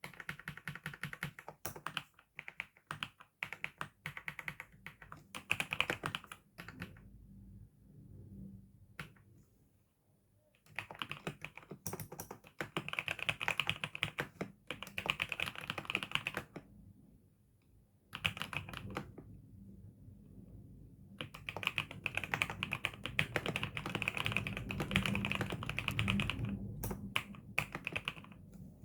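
Typing on a newly bought computer keyboard: quick runs of key clicks in bursts of a few seconds, with short pauses between them.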